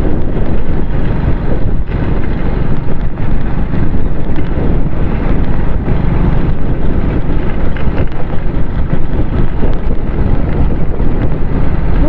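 Steady wind rushing over the microphone of a moving motorcycle, mixed with the bike's engine and tyre noise on a dirt road.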